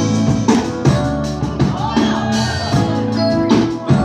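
Live band playing an upbeat groove: a drum kit keeps a steady beat, about two hits a second, under bass and guitar.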